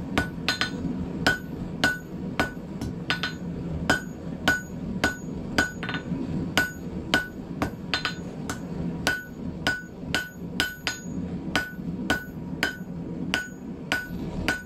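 Hand hammer striking hot 10 mm round bar on a steel anvil, about two blows a second, each with a short bright ring, while the bar is drawn out into a taper. A steady low rumble runs underneath.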